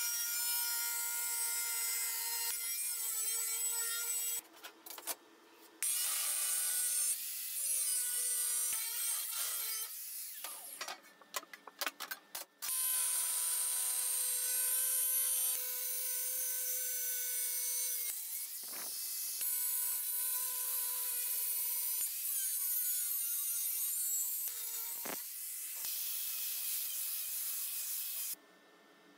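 Angle grinder with a thin cut-off disc cutting steel sheet: the hiss of the disc biting the metal over the motor's steady whine. It breaks off briefly twice, about five seconds in and again around eleven seconds, and stops shortly before the end.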